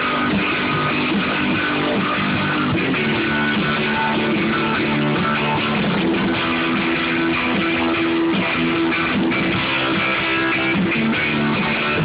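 Rock band playing at rehearsal, strummed guitars carrying a steady, loud wall of sustained chords.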